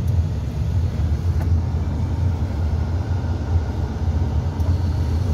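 Steady low rumble of a vehicle's engine and tyres heard from inside its cabin as it moves slowly along a snow-covered road.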